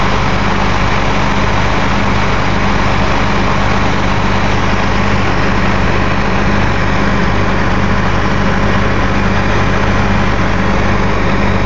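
Case IH 9120 combine running at a steady pace, a constant loud drone with a low hum that does not change.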